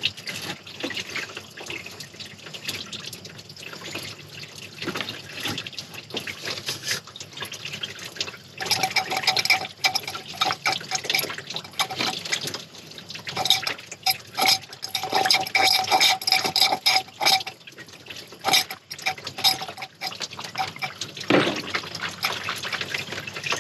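Engine coolant pouring from a disconnected radiator hose and splashing into a bucket. The stream is uneven and grows heavier and louder from about nine seconds in, easing off again near the end.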